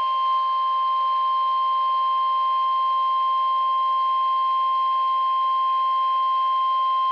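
NOAA Weather Radio 1050 Hz warning alarm tone: a single steady, unbroken beep over faint radio hiss. It is the alert signal that a warning message is about to follow.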